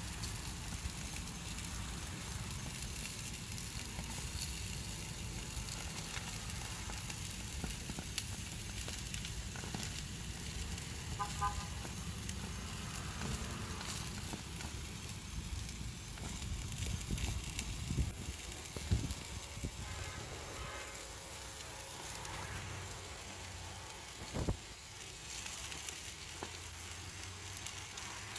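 A tomahawk steak sizzling on grill grates, a steady crackle with small pops as fat drips and spits, over a low rumble. There is a single sharp click near the end.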